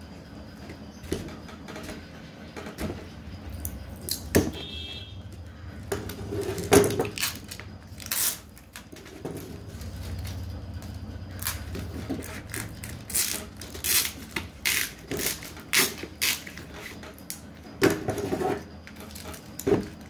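Cardboard credit-card mailer being handled and opened by hand: irregular crinkling, rustling and sharp paper clicks, over a steady low hum.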